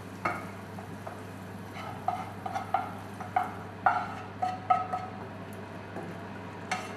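Wooden spatula scraping and knocking against a nonstick frying pan while pork in tomato sauce is scraped out into a stainless steel saucepan: a dozen or so short scrapes and knocks, some with a brief metallic ring as the pans touch.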